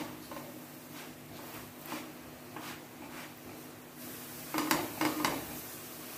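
Silicone spatula pressing and dabbing a lachha paratha frying in a nonstick pan, giving a series of soft taps and scrapes over a faint steady hiss. There is a close cluster of taps about four and a half to five and a half seconds in.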